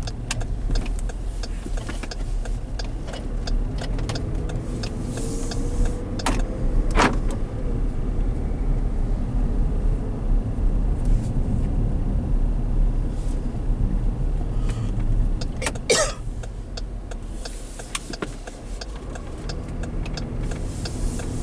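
Steady road and engine rumble of a 2016 Dodge Durango driving, with a sharp click or knock about a third of the way in and another about three-quarters through.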